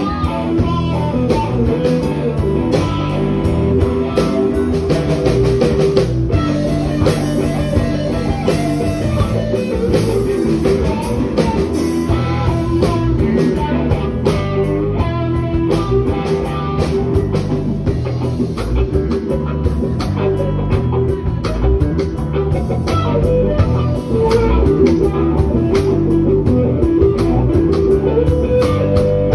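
Live blues band playing loud through a PA: a lead electric guitar line with held and bent notes over bass guitar and drums, with no vocals.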